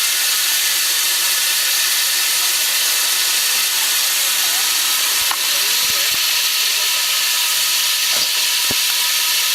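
Welsh Highland Railway steam locomotive standing at the platform, hissing steam steadily.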